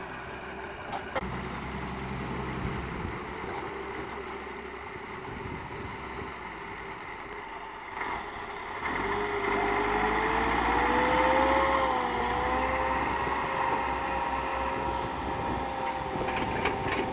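Diesel engines of a wheeled excavator and a farm tractor running, with a single knock about a second in. About nine seconds in, the tractor's diesel engine revs up, its pitch rising and then holding high and steady as it hauls a trolley loaded with sand.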